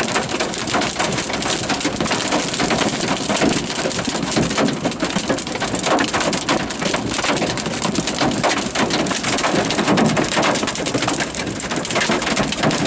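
Heavy rain mixed with hail pelting a vehicle's roof and windshield: a loud, steady, dense patter of impacts.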